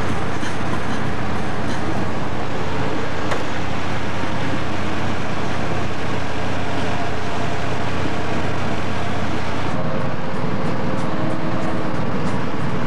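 Steady traffic noise from a queue of car engines idling and creeping along, heard through a camcorder microphone, with a faint low hum. The sound changes abruptly about ten seconds in, at a cut in the tape.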